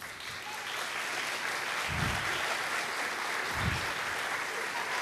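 Audience applauding steadily, building up in the first second. Two dull low thuds come about two and three and a half seconds in.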